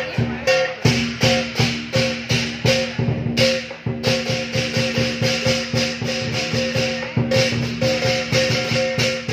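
Lion dance percussion: drum and cymbals beating a fast, steady rhythm of about three strokes a second over a held ringing tone.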